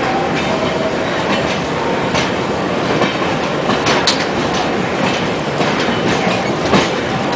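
Shatabdi Express passenger coach running on the track, heard at an open coach door: a steady rumble of wheels on rail with irregular clacks as the wheels cross rail joints.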